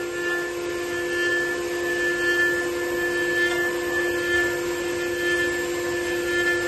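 Spindle of a 4-axis CNC wood router running at constant speed with a steady whine while a thin cutter machines the edge of a fibreboard panel.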